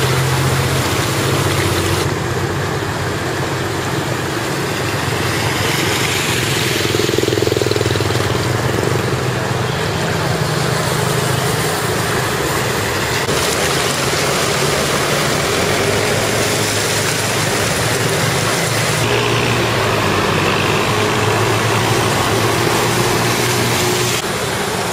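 Traffic wading through a flooded street: scooter and car engines running steadily under the continuous swish and splash of water pushed aside by the wheels. The mix changes suddenly a few times.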